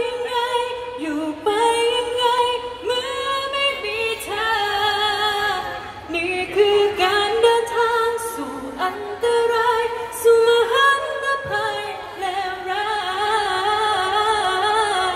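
A woman singing a ballad live into a handheld microphone, amplified, holding long notes with vibrato; her voice is hoarse but still strong.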